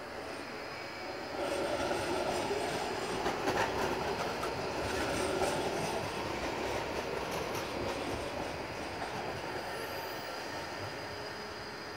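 A Basel tram rolling past, its wheels clicking over the rails. It swells about a second and a half in and fades slowly toward the end, with a short high squeal near the end.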